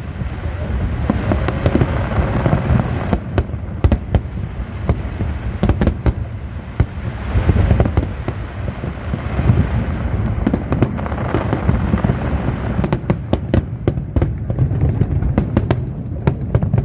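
Aerial fireworks display: a dense, continuous barrage of booming bursts and sharp cracks over a steady low rumble, the cracks coming thickest in the last few seconds.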